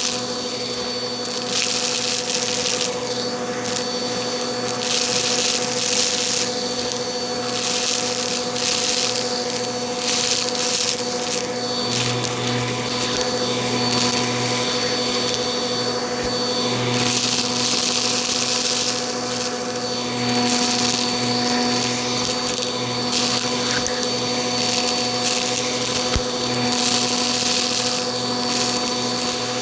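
Bissell vacuum cleaner running steadily: a constant motor hum and whine under a rushing air sound that swells and eases every second or two.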